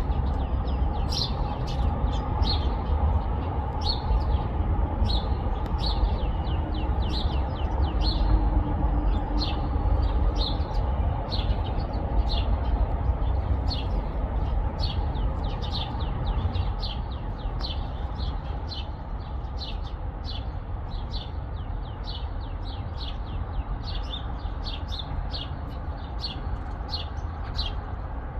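Small birds chirping: short, high chirps repeating about once or twice a second, over a steady low rumble.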